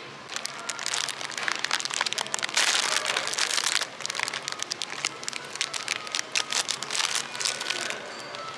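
Plastic snack wrapper crinkling and rustling as it is handled and opened by hand, at its loudest about three seconds in.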